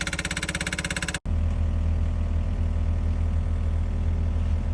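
Rapid, evenly spaced hammering for about a second, then a sudden cut to an excavator's diesel engine running steadily with a deep hum.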